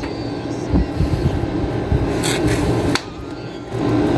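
Split-type air conditioner compressor humming steadily, a hard-starting compressor being started with an added starting capacitor. A sharp click comes about three seconds in, and the hum is quieter after it.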